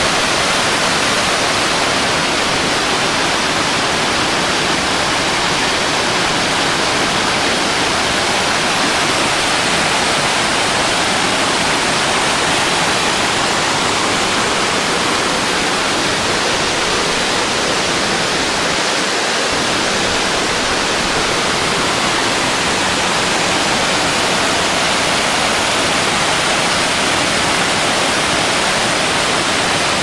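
Waterfall with rushing water: a loud, steady, even noise that does not change.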